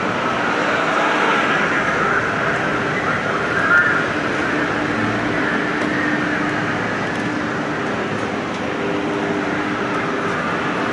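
Steady city street traffic noise heard from a moving bicycle, an even hiss of vehicles and road with a faint low hum under it. A brief, louder high sound stands out about four seconds in.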